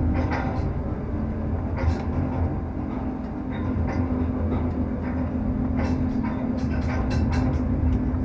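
Potain tower crane's drives heard from the operator's cab as the crane moves a hanging concrete bucket: a steady low hum with a held tone, and scattered clicks, more of them near the end.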